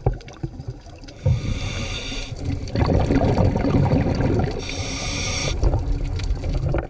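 Scuba diver breathing through a regulator underwater: two inhalations, each a hiss about a second long, each followed by a rush of exhaled bubbles.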